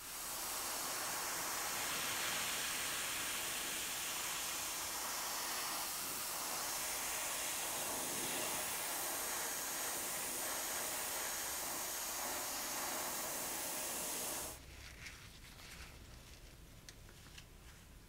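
Spray paint hissing steadily as it colours a lure through a lace stencil, cutting off suddenly about fourteen seconds in. Faint rustling and small clicks of handling follow.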